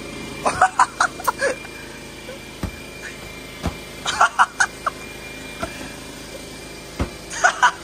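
Young men laughing and yelping in short rapid bursts, three times, while inflatable boxing gloves land a few dull, hollow thumps in between.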